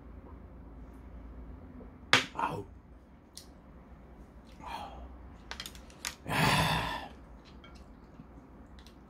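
A small glass set down on a wooden table with one sharp knock about two seconds in, then a few light clicks of tableware, and a breathy exhale lasting under a second near the end.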